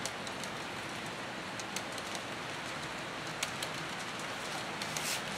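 HO scale model freight trains rolling along the track: a steady hiss of small metal wheels on the rails, with scattered sharp clicks as the wheels pass over rail joints.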